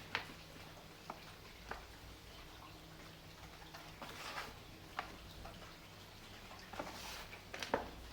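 Soft dried sand-and-cement crumbles being broken: several crisp snaps, the loudest near the end, with brief gritty crumbling about four and seven seconds in, over a faint steady rain sound.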